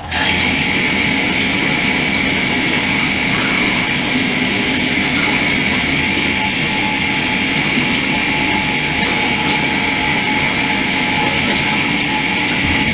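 Bathroom tap turned on and running steadily into the basin: a loud, even hiss with a high whistle in it that starts suddenly.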